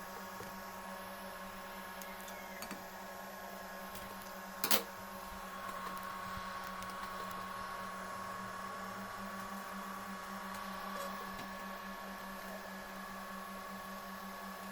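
Homemade 3D printer running under test: a steady electrical whine with several held tones, typical of stepper motors being driven, with one sharp click about five seconds in.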